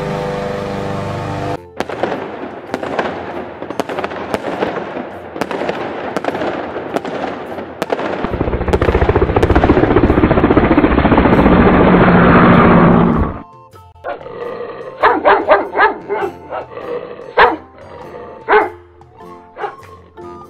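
A row of sound effects. A lawn mower engine runs for the first second and a half. Then fireworks crackle and bang in quick succession for about six seconds, followed by a helicopter's steady rotor and engine noise for about five seconds that cuts off suddenly. Finally a dog barks several times.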